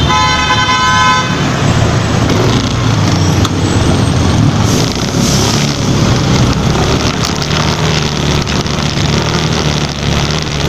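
Steady road traffic and vehicle noise, with a brief tone in the first second or so.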